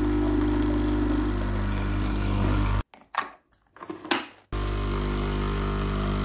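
Electric coffee machine's pump running with a steady, loud hum. It cuts off about three seconds in and starts again after a short break with a few brief sounds.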